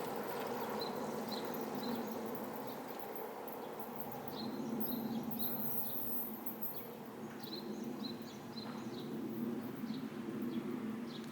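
Outdoor city ambience: a steady hum of distant traffic, with small birds chirping in short high bursts now and then.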